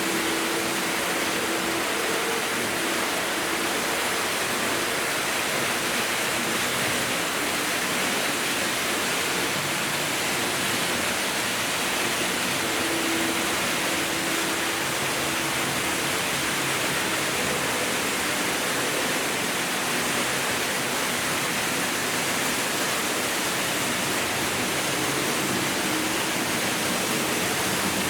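Several Märklin H0 model trains running at once: a steady rushing noise of wheels on track and small electric locomotive motors, with a faint motor hum that comes and goes.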